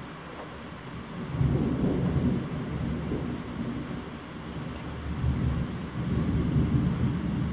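Thunder rolling in a long, low rumble that starts about a second in and swells again in the second half, over steady heavy rain.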